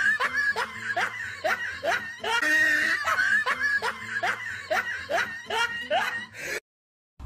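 Cat giving a rapid string of short meows, about three a second, each call dropping in pitch. It cuts off abruptly near the end.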